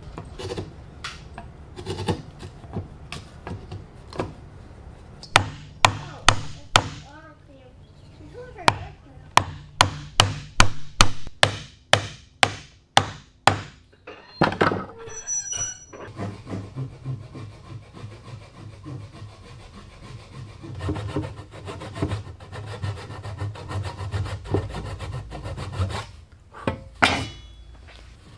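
Mallet strikes on wood joinery, a long run of sharp knocks coming about two a second at their fastest. Around halfway they stop and give way to a steady scraping of a hand tool working wood.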